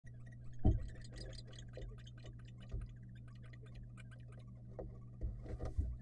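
Dull thumps on a wooden barn owl nest box as the male barn owl lands and comes in: a loud one about a second in, another near three seconds, and a cluster with a short rush of noise near the end. A steady electrical hum and constant faint irregular ticking run underneath.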